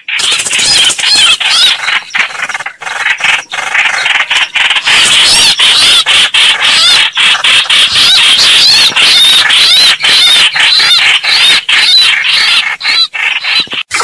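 Bird-call lure recording: loud, dense squealing of many birds calling over one another, with rapid repeated high notes.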